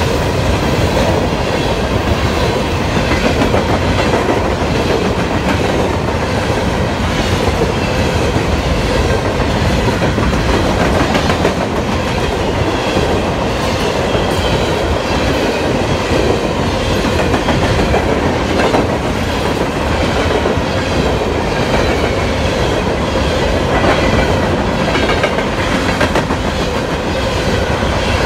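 Coal train's steel hopper cars rolling steadily past at close range: a continuous loud rumble of wheels on rail, with faint wavering high wheel squeal over it.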